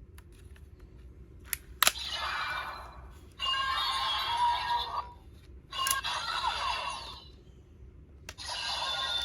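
DX D-Flasher transformation toy playing electronic sound effects and music through its small speaker in several bursts, after two sharp plastic clicks of its buttons or cards.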